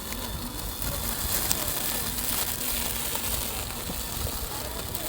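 Small electric lawn mower running steadily: an even rushing noise with a faint hum.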